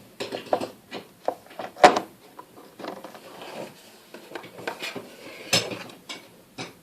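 Plastic pens and markers clicking and clattering as they are handled and set down, a run of short, irregular knocks.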